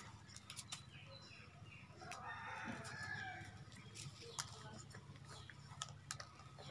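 Chickens clucking faintly, loudest about two to three seconds in, with scattered small clicks and rustles of rice grains on a plastic sheet.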